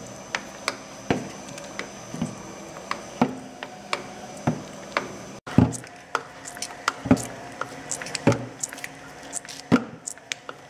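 Gesame MH75 meatball and patty forming machine running, with a sharp knock about twice a second over a steady low machine sound, broken by a brief gap about halfway through.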